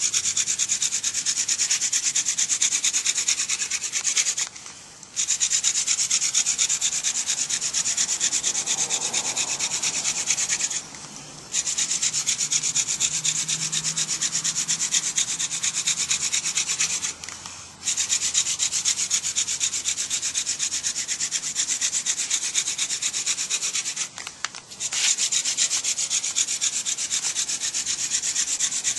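Hand-drill friction fire: a blue vervain spindle spun between the palms, grinding in its socket in a cedar hearth board with a steady dry rasping hiss. The drilling breaks off briefly four times.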